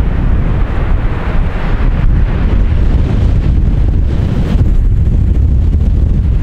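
Strong wind buffeting the microphone: a loud, uneven low rumble with gusty hiss above it.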